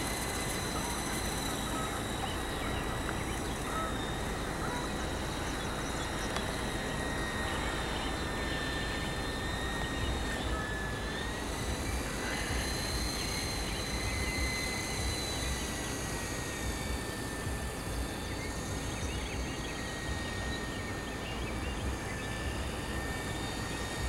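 Blade CX2 coaxial electric RC helicopter in flight: a steady high motor-and-rotor whine that dips and rises slightly in pitch around the middle, over a low rumble.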